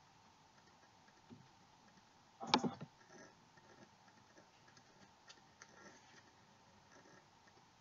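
Handwritten paper note cards handled and swapped close to a webcam microphone: a short burst of clicks about two and a half seconds in, then softer scattered clicks, over a faint steady hum.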